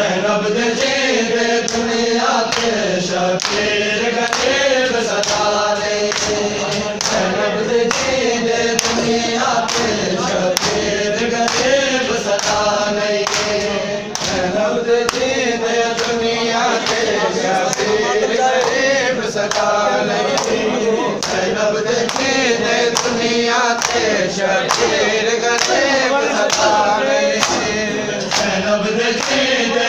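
A group of men singing a noha, a Shia mourning lament, in unison. Under it runs a steady beat of bare-handed chest-beating (matam) slaps.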